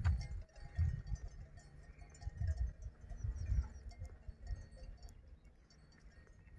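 Wind gusting against the microphone in uneven low rumbling bursts, easing toward the end, with faint high clinks in the background.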